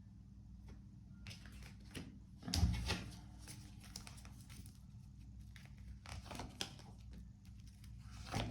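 Tarot cards being handled: scattered rustles and light clicks of card stock, with a louder thump about two and a half seconds in, over a steady low hum.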